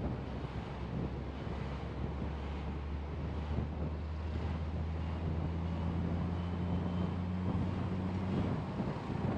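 A car being driven: steady road and wind noise with a low engine hum. The hum strengthens about halfway through and fades shortly before the end.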